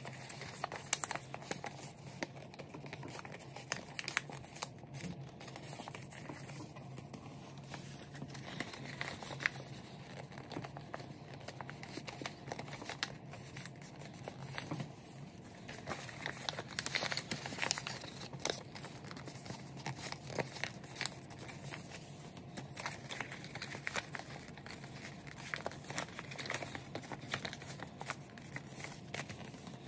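A creased sheet of origami paper being folded and pinched by hand: irregular crinkling and crackling as the pleats are pressed flat.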